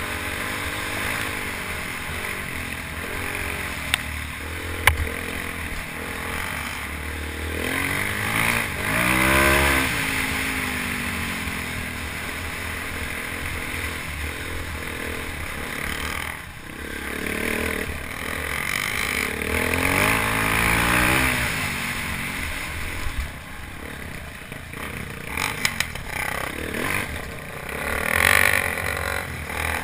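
Single-cylinder dual-sport motorcycle engine pulling up a dirt trail climb, revving up twice as the rider opens the throttle, over steady wind rush. A few sharp knocks and clatter come from the rough ground.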